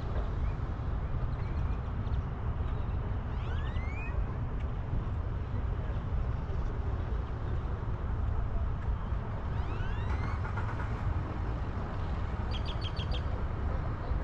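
Steady low rumble of wind and road noise buffeting a camera on a boat being towed by road. Short rising chirps sound about four seconds in and again about ten seconds in, and a quick run of about five high pips comes near the end.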